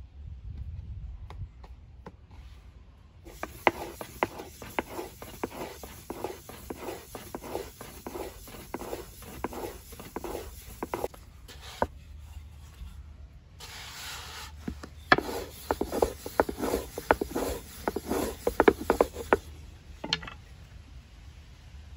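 Long thin wooden rolling pin (oklava) rolling bread dough on a floured wooden board: quick rhythmic rubbing and knocking strokes, about three a second. The strokes stop briefly about halfway, then start again louder.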